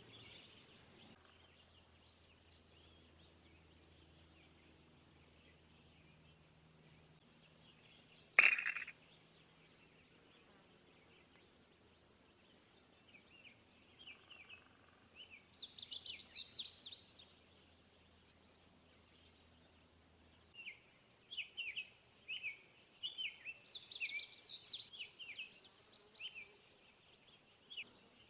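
Wild songbirds singing in quick bursts of high chirps, loudest in two spells in the second half. There is one sharp knock about eight seconds in.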